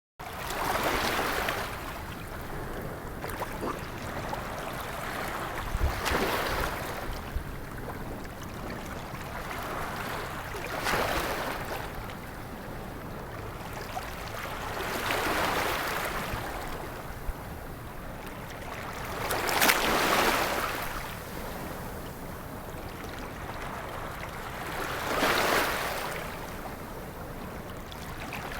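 Sea waves washing onto a beach. Each wave swells into a rush of surf and fades, one about every four to five seconds.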